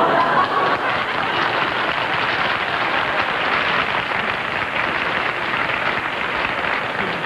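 Studio audience applauding, starting suddenly and going on steadily for several seconds.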